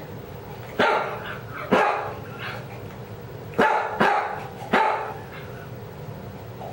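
A dog barking five times, each bark with a short trailing rasp: the new wheeze that comes only when she barks, which the owner links to starting vinblastine chemotherapy.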